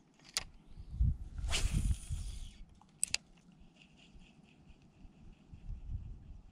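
Spinning reel in use: a sharp click, a brief rush of noise like line paying out, a second click, then the reel being cranked with a faint, even ticking of about four a second, among low handling bumps.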